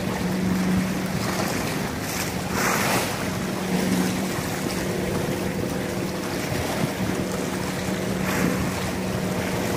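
Wind buffeting the microphone over choppy sea water, with a steady low hum underneath. Two brief louder rushes come about three seconds in and near the end.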